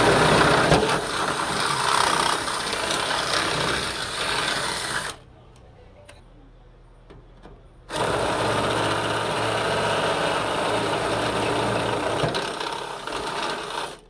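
Power drill running under load, drilling a hole through the car's sheet metal for a bonnet pin, in two runs of about five and six seconds with a short pause between.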